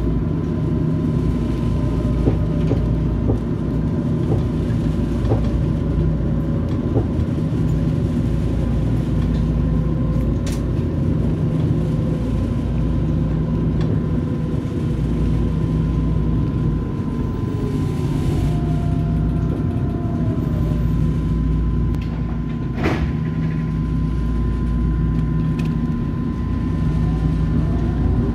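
Eurotram running on its rails, a steady low rumble carrying a constant high whine. The electric drive's whine glides slowly down in pitch, then rises again near the end as the tram picks up speed. A sharp click or knock sounds once about two-thirds of the way through.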